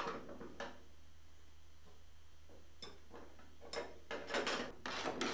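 Light metallic clicks and taps from hand work on a bolted steel roll-cage floor plate in a car's bare floor pan. One or two single clicks come first, then from about two-thirds of the way in a run of clicks at about three a second.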